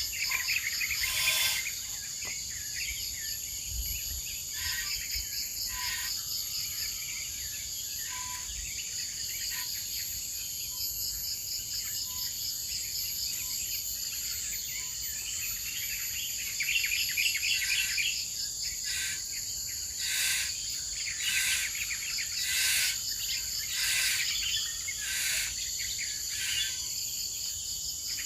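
Forest insects trilling steadily in a high chorus, one of them in a fast pulsing trill, with short sharp chirps breaking in every second or two and a faint, soft, lower note repeating at intervals.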